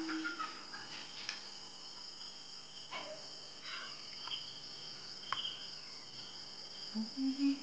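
Insects, crickets by their sound, trilling in a steady high continuous chorus, with three short faint clicks.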